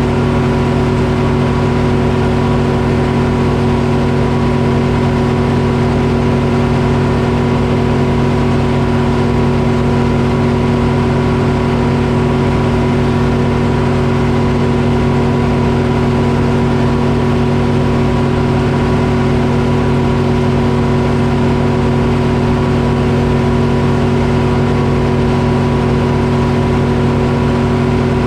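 Detroit Diesel engine running at a steady speed, powering a Frick sawmill, with an even, unchanging drone and no rise or fall in pitch.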